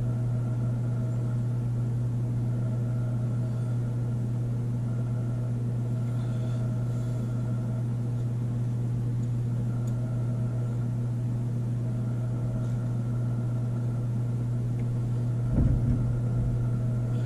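A steady low hum with faint higher overtones, like a running appliance or fan. A brief louder low sound breaks in near the end.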